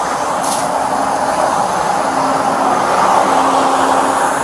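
Steady din of heavy diesel engines running, mixed with wind on the microphone, with a faint low hum that comes and goes and a short hiss about half a second in.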